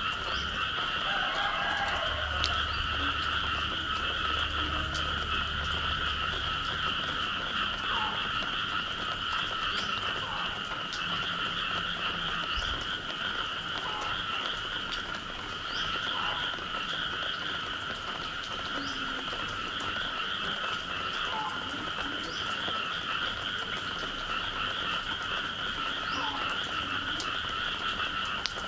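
A dense chorus of frogs calling together after rain, forming a steady unbroken trill, with a sharper single call standing out every second or two.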